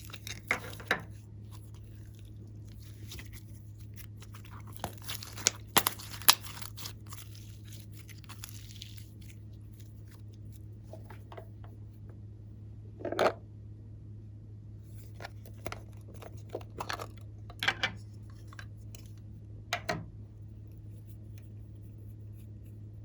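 Glossy slime worked by hand, giving scattered sharp pops and crackles, busiest about a quarter of the way in, with a louder pop near the middle, over a steady low hum.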